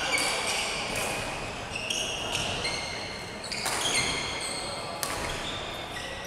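Badminton players' shoes squeaking on a wooden sports-hall floor during a doubles rally, with a few sharp racket hits on the shuttlecock.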